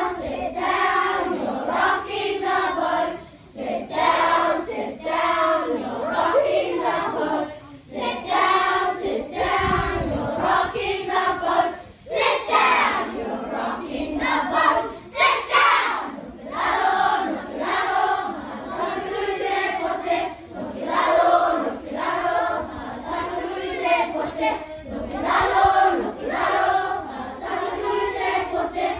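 A group of children singing together in phrases, with short breaks between lines.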